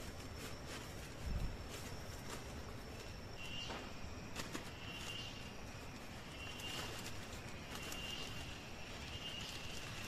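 Jungle ambience: a steady high insect drone in the first few seconds, then short high chirping calls repeating every one to one and a half seconds. Over it are scattered clicks and rustles of someone handling bedding and climbing onto a pole bed, with one dull thump about a second in.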